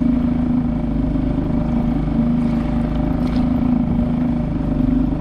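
Small outboard motor pushing a kayak along at a steady cruise of about five to six miles an hour, running with an even, unchanging hum.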